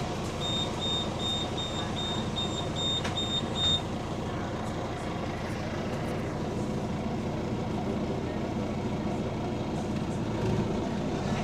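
Steady engine and road rumble inside a moving double-decker bus, with a quick run of about ten high-pitched beeps, about three a second, in the first four seconds.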